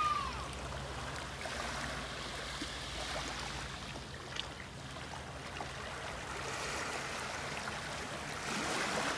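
Small sea waves lapping onto a pebble beach and washing around rocks, with a steady wash of water that swells again near the end as another wave comes in.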